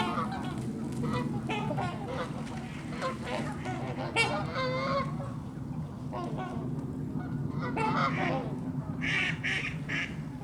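A flock of waterfowl calling, with many overlapping honks scattered throughout, over a steady low hum.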